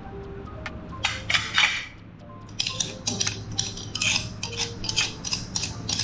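Meat grinder clinking and scraping in quick irregular clusters, metal on metal, over soft background music.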